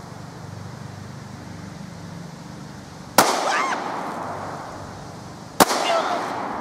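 Two shots from a Smith & Wesson Shield 9mm pistol, about two and a half seconds apart, each dying away over about a second.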